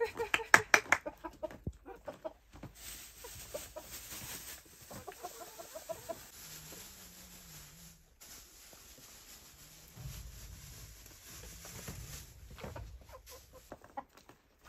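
Domestic chickens clucking while they feed, with a run of loud, rapid calls in the first two seconds and softer clucks around the middle.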